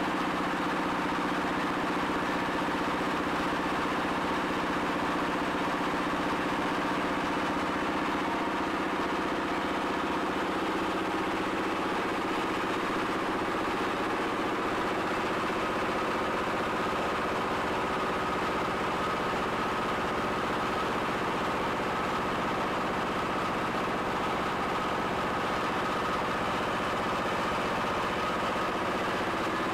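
Small stationary engine running steadily, driving a screw-press briquette extruder as the carbonized bagasse mix is fed through; a higher whine grows stronger about halfway through.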